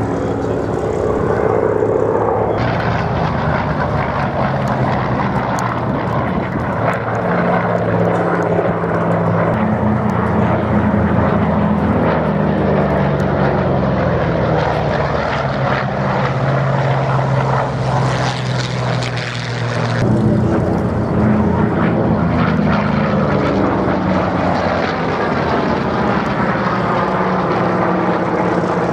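Vought Corsairs' Pratt & Whitney R-2800 radial engines and propellers during a pairs flying display, the engine note sliding up and down in pitch as the aircraft pass and manoeuvre. The sound changes abruptly twice, about two and a half seconds in and about two-thirds of the way through.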